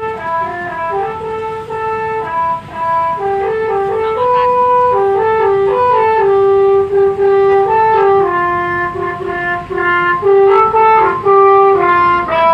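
Multi-tone 'telolet' bus horn playing a tune: a run of steady held notes stepping up and down, sometimes two sounding together, starting abruptly.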